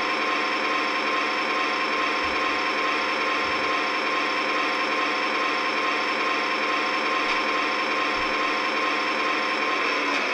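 RailSounds 4.0 sound board in an Atlas Master GP35 model locomotive, playing a steady diesel engine sound through its small speaker, with a thin steady whine in it.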